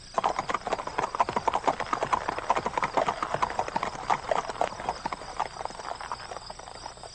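A horse's hooves clip-clopping on cobblestones as a one-horse carriage pulls away. The quick hoofbeats fade out over the last couple of seconds.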